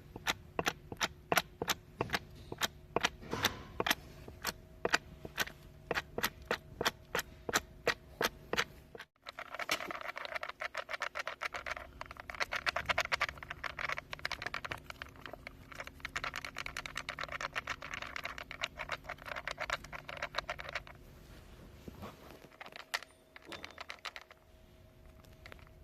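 Worn differential spider gears clacking as they are turned: sharp, irregular clicks a few times a second. After a break about nine seconds in, they become a denser, faster rattle for around twelve seconds, then quieter. The clacking is the play of a worn-out spider gear.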